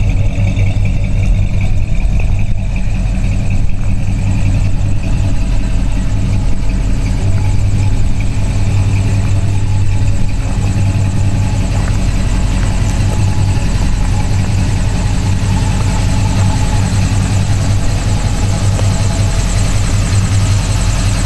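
A 1972 Chevelle's 350 small-block V8, fitted with headers and dual exhaust, idling steadily with a deep, even exhaust note.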